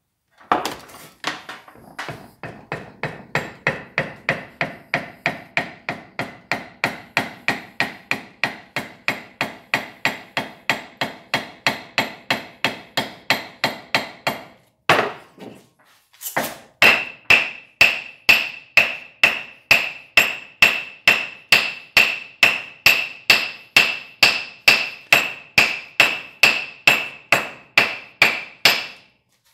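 Steady blows driving a wooden handle onto the tang of a Wiltshire flat bastard file held in a vise, about three a second. They stop briefly around the middle; in the second run each blow rings with a clear high note.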